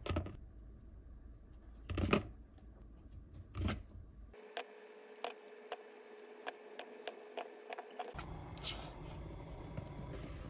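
Cherry tomatoes being scored with a small knife and dropped into a plastic mixing bowl: three dull knocks in the first few seconds, then a quicker run of light clicks. A soft, even rushing noise follows near the end.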